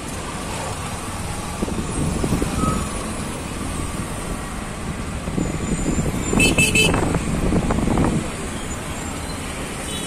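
Stop-and-go traffic in a jam: engines running steadily, with a vehicle's engine swelling louder twice, and a short horn toot about six and a half seconds in.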